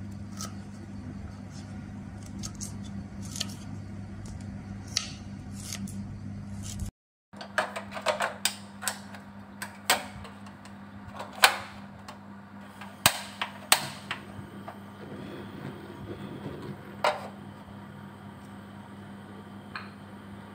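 Kitchen knife slicing fresh ginger on a wooden chopping board, with light taps of the blade on the board. Then a run of sharp clicks and clacks from handling a portable gas stove and its pot, the loudest about halfway through. A steady low hum runs under both.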